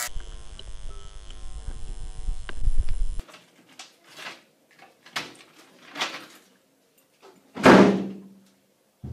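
Dramatic sound design: a low, droning chord that cuts off abruptly about three seconds in, followed by a series of sharp hits about a second apart, the loudest near the end with a short ringing tail.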